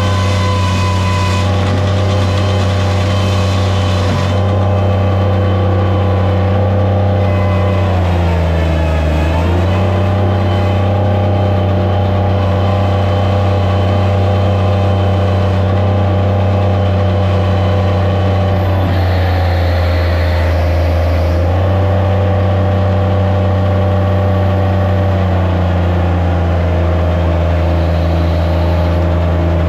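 Skid steer engine running loud and steady. Its pitch dips briefly and recovers about eight seconds in, and shifts again around twenty and twenty-five seconds in, as the machine is worked.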